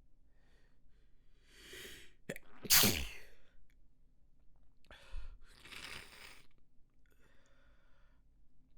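A person's sneeze fit: a drawn-in breath, then a loud sneeze about three seconds in with a falling voiced 'choo', then a second sneeze about two seconds later, followed by a shorter breathy sniffle near the end.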